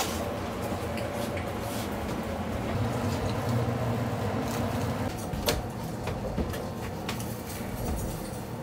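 Steady low hum of kitchen machinery such as the range hood fan, with a few light clicks and knocks of utensils and plates on a steel counter, the sharpest about five and a half seconds in.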